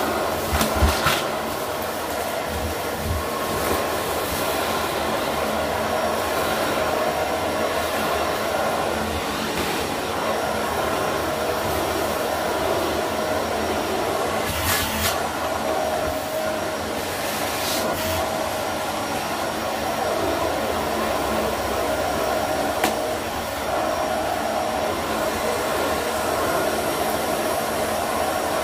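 Dyson vacuum cleaner running steadily, its bare wand tube sucking dust and debris off a carpet, with a couple of brief sharp clicks about halfway through.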